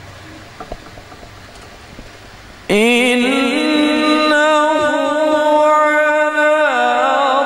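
A male qari begins a melodic Quran recitation (tilawat) into a microphone. The voice comes in suddenly about a third of the way in, with long, held notes that waver in pitch. Before it there is only quiet room noise with a couple of faint clicks.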